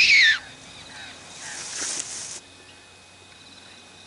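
A Silva fox whistle blown as a predator call to lure a feral cat. Its last squealing note rises and falls and ends about a third of a second in. A soft hiss follows near the middle, then only low background noise.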